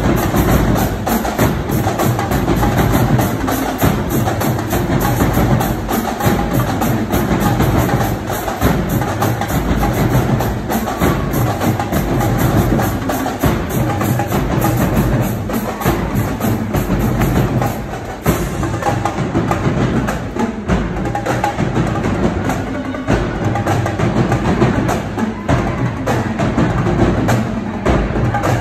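Marching band drumline playing: snare drums, tenor drums and bass drums with crash cymbals, in a fast, dense, unbroken rhythm.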